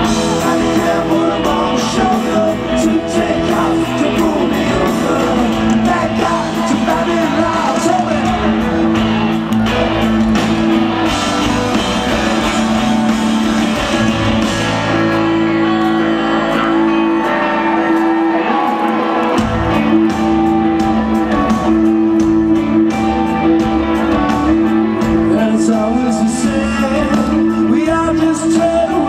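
Rock band playing live through a concert PA: male lead vocals over electric guitars, bass, keyboard and drums. The bass drops out for about four seconds midway, then comes back in.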